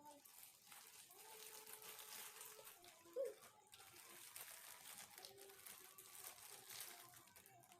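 Very faint eating sounds: soft filled bread being chewed and handled, with light crinkling.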